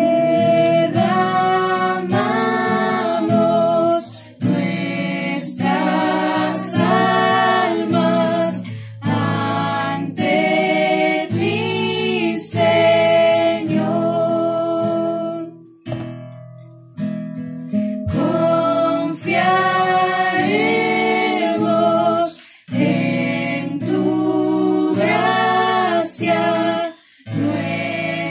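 Spanish-language Christian worship song sung over acoustic guitar, the words "derramamos nuestras almas ante ti Señor, nuestro Salvador", with a short pause between phrases about sixteen seconds in.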